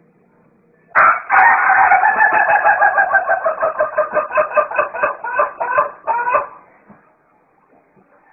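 A chicken's loud call lasting about five and a half seconds. It starts suddenly and breaks into quick repeated pulses, about four a second, in its second half.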